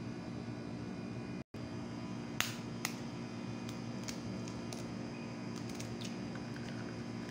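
An egg being cracked: two sharp taps about a second apart, then light scattered ticks of the shell, over a steady hum.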